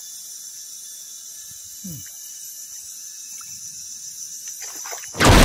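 Steady high-pitched drone of insects over a quiet riverbank, with a few faint clicks. Near the end, a sudden loud rush of noise cuts in and drowns it out.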